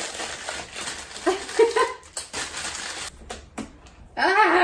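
Packaging rustling and clicking as someone struggles to tear open a stubborn pull tab, with a few short effortful vocal sounds and a loud frustrated "Ah!" near the end.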